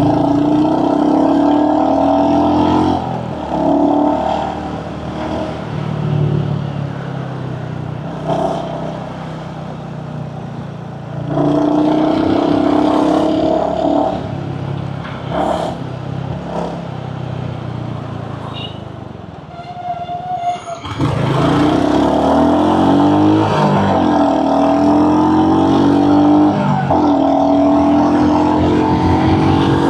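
Royal Enfield Hunter 350's single-cylinder engine pulling hard under acceleration while riding, the engine note climbing and changing with gear shifts. The engine drops back off the throttle twice, then picks up again about two-thirds of the way through.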